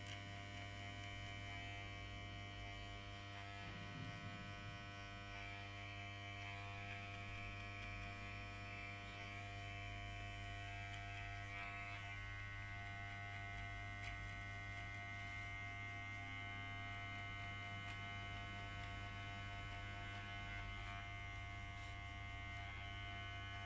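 Electric hair clipper running with a steady buzz as its blade is flicked against short hair to blend out the line of a skin fade.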